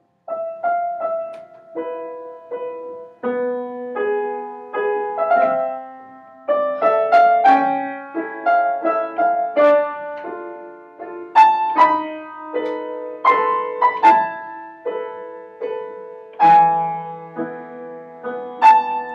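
Upright piano playing a slow passage of single notes and chords, each struck and left to ring and fade. It begins suddenly from silence, and lower bass notes join about sixteen seconds in.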